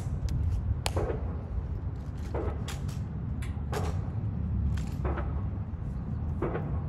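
Sharp clicks of a Tomb of the Unknown Soldier sentinel's drill, roughly one every second or so, as his heels strike the mat and his hands meet the rifle, over a steady low rumble.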